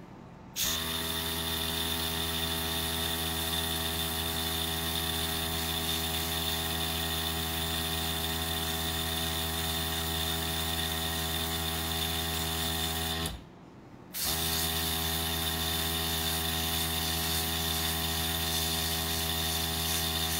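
Small airbrush compressor running with a steady motor hum and a hiss of air as the airbrush sprays a fine jet. It switches on about half a second in, stops for about a second roughly two-thirds of the way through, and starts again.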